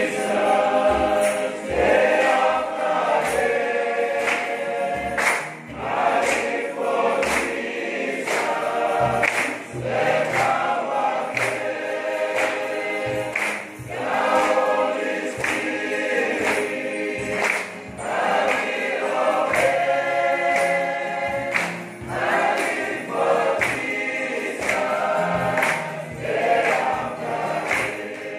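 A congregation of men and women singing a gospel hymn together in unison, over a steady low drum-like beat with sharp percussive strikes.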